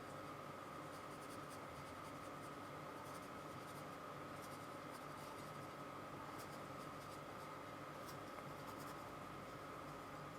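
Faint scratchy strokes and dabs of a paintbrush applying acrylic paint to canvas, over a steady thin background whine.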